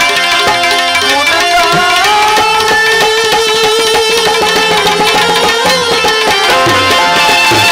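Live devotional bhajan music: tabla keeping a steady beat under a plucked-string melody, with one long held note through the middle.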